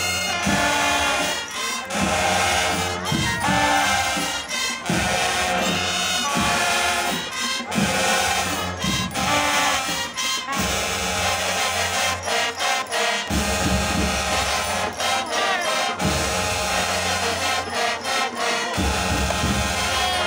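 School marching band playing, brass instruments over drums with a strong, regular beat.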